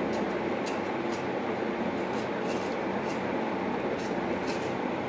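Steady background whooshing noise with light, irregular scratchy ticks from a knife scraping the skin off a frozen tomato.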